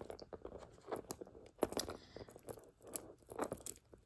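Faint, irregular clicks and rustles of a gold-tone metal J. Crew statement necklace, its chain links and stone-set pieces being handled and turned over.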